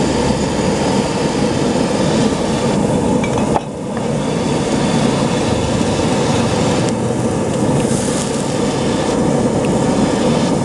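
Stove burner roaring steadily under a wok of soup at a hard boil, with a brief dip a few seconds in.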